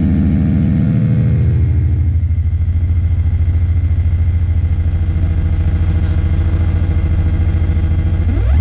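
Noise-music electronics: a loud, low, rapidly pulsing drone with an engine-like throb, holding steady until a rising pitch sweep cuts in near the end.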